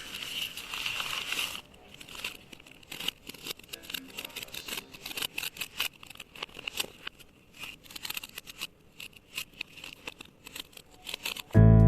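Irregular crackling and clicking handling sounds, with a steady high hiss during the first second and a half. Acoustic guitar music cuts in abruptly at the very end.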